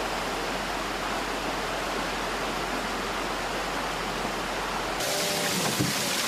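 Steady rush of flowing water. About five seconds in it cuts to a different water sound with a pitched, voice-like sound and one knock over it.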